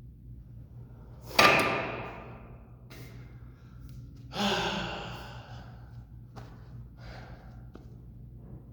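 A man breathing out hard twice during a heavy cable tricep pushdown set: a sharp loud exhale about a second in and another about four seconds later with a short grunt. A few light clicks follow over a steady low hum.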